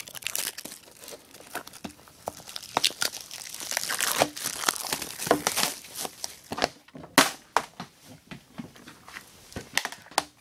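Plastic wrap crinkling and tearing as it is worked off a DVD case by hand, with irregular crackles and a sharp snap about seven seconds in.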